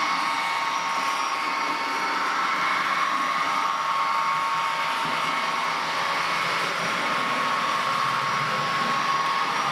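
Model V200 diesel locomotive running on a model railway with its train, giving a steady whirring hum with a constant high whine.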